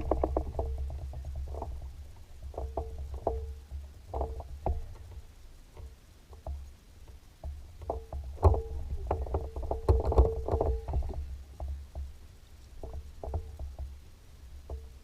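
Water slapping and knocking against a fishing boat's hull in irregular hollow knocks, busiest about two-thirds of the way through, over a low steady rumble.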